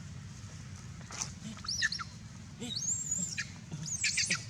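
Monkey giving a string of high-pitched squeaky calls from about a second in, the longest one held for nearly a second in the middle, over a steady low hum.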